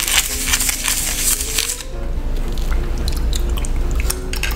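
Chewing and crunching of sushi close to the microphone, densest in the first two seconds.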